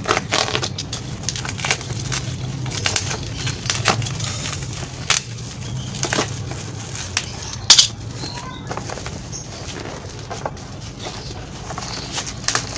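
Plastic packaging crackling and rustling in irregular sharp crackles as hands peel it off a boxed item, with one loud crackle a little past the middle, over a steady low hum.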